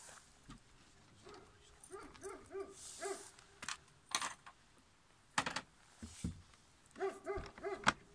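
A dog giving short, rapid whines or yips in two runs of three or four, with a few sharp knocks in between.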